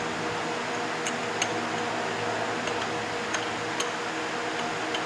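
Steady hum of a shop fan, with a few sharp metallic clicks and clinks at irregular intervals as a hand tool is worked against the engine's front.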